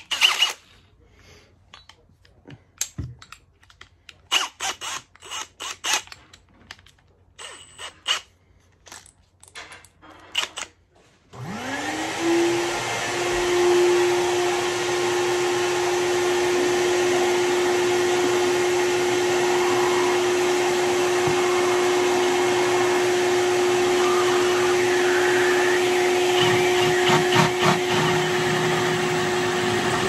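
A few handling clicks and knocks, then about eleven seconds in a Milwaukee Fuel cordless drill spins up with a rising whine and runs at a steady pitch, drilling out the switch hole in the grinder's housing with a 12 mm bit. Some rattling comes in near the end as the bit cuts.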